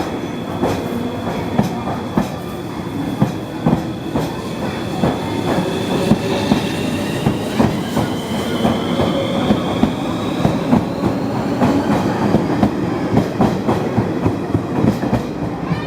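Train passing close by, its wheels clacking steadily over the rail joints, with a thin high whine that rises slowly in pitch through the middle.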